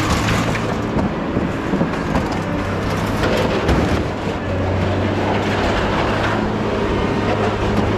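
A heavy engine running steadily with a low hum, under irregular clanking and rattling of scrap steel being moved.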